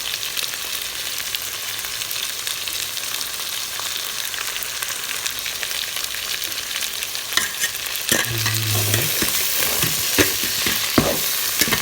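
Chicken sizzling as it sautés in a pan with onion, garlic and ginger. From about two-thirds of the way in, a utensil taps and scrapes the pan as it is stirred, and the sizzle grows louder.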